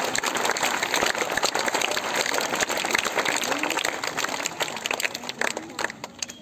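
A crowd of students applauding, many hands clapping together, thinning out and dying away near the end.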